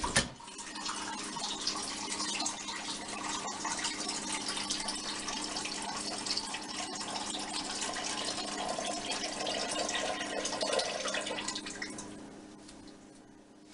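Water running from a kitchen tap, tapering off about twelve seconds in, after a sharp knock at the start.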